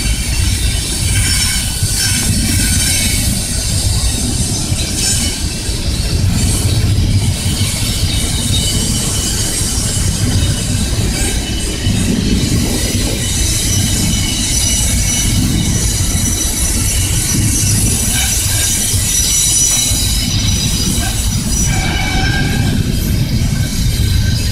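Florida East Coast Railway freight train of container and trailer cars rolling past, steel wheels squealing on the rail with high thin tones over a steady low rumble.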